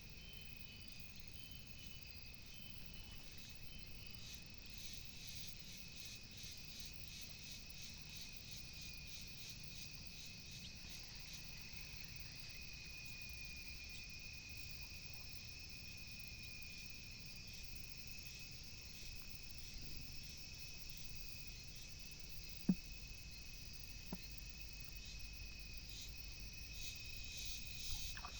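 Insects calling steadily: one high constant whine with a faster pulsing chirr above it. Near the end come two sharp clicks about a second and a half apart, the first the loudest sound here.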